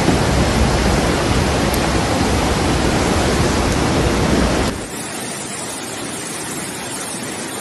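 Muddy floodwater rushing down a street, a loud steady rush of water. About two-thirds of the way through it cuts suddenly to a quieter rush of floodwater.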